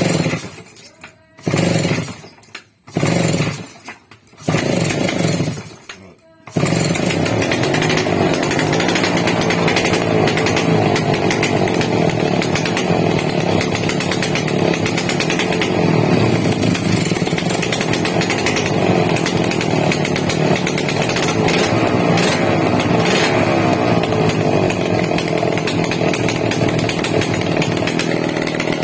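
A power tool starts about six seconds in and runs steadily and loudly without a pause, after a few short separate bursts of sound.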